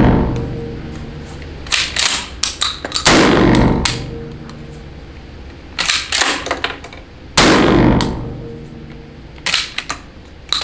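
12-gauge semi-automatic shotgun firing double-aught buckshot in an indoor range: two loud shots about four seconds apart, each ringing on in the range's echo. Between them come quick clusters of sharp metallic clacks from the action being worked by hand.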